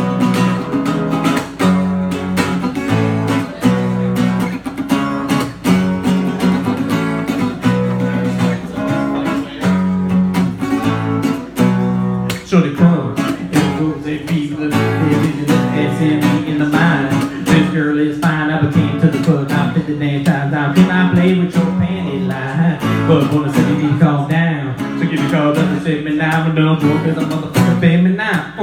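Live acoustic guitar strumming with no lyrics sung, the strumming pattern changing about twelve seconds in as one song gives way to the next.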